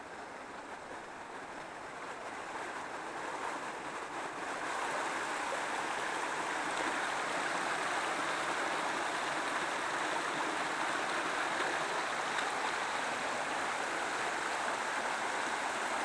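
A small forest stream cascading over rocks, with a steady rush of water that grows louder over the first five seconds or so and then holds even.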